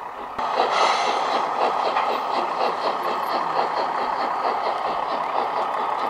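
Garden-railway model train running past close by: a steady rolling rumble with a regular light beat of about three a second, coming in suddenly about half a second in.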